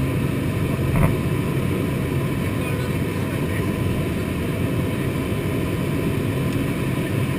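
Single-engine high-wing light aircraft on its takeoff run and lift-off: the engine and propeller running steadily at takeoff power, with air rushing past the plane. A single short knock about a second in.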